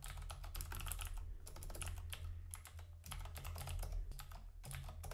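Typing on a computer keyboard: quick runs of keystroke clicks with short pauses between them, as a line of code is entered, over a low steady hum.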